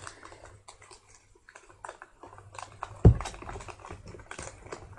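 A sheet of origami paper crinkling and crackling in short bursts as it is handled and its flaps are pulled out, with one dull thump about three seconds in.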